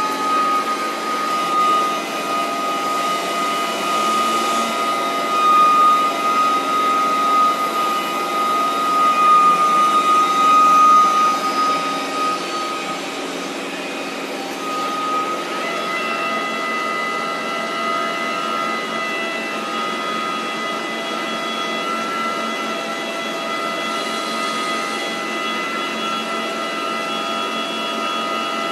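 Steady drone of cargo-handling machinery at a ship loading berth, with a high, steady whine over it. The whine fades about halfway through and comes back a few seconds later with a second, higher tone added.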